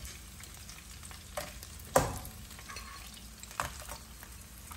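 Blue crabs frying in hot oil in a nonstick pan, a steady sizzle broken by a few sharp knocks, the loudest about two seconds in.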